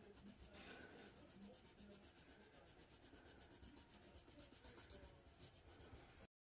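Faint scratching and rubbing of a drawing tool moving across paper, with soft irregular strokes. It cuts off suddenly near the end.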